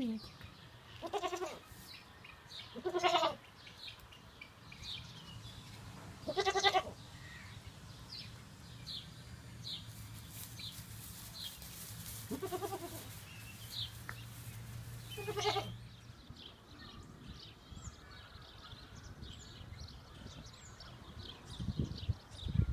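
Goat bleating in about five short calls spread over the first fifteen seconds, with small birds chirping throughout. A low rumble comes in near the end.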